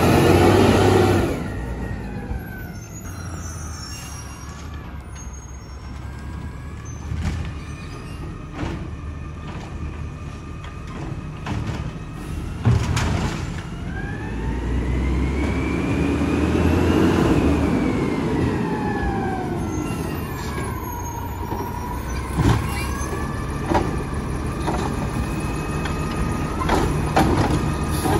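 Mack LR natural-gas garbage truck with an automated side arm. It is loud as it passes close by about a second in, then drives off and comes back toward the bins. Its driveline whine glides up and down in pitch as it speeds up, shifts and slows, with a few sharp clicks and knocks along the way.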